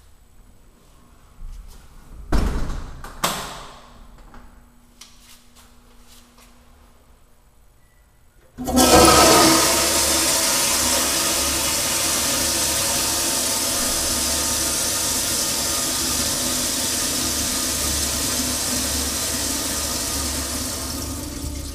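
Stainless steel toilet flushing: a sudden loud rush of water about eight and a half seconds in that carries on steadily, slowly easing off. Before it, two sharp knocks about a second apart.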